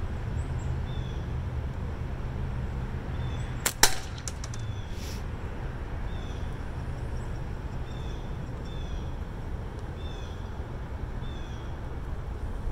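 A single slingshot shot from a Magpie Hunter Light firing 1/4-inch steel: about four seconds in, a sharp crack of the release and hit, followed by a few lighter clicks and a brief metallic ring.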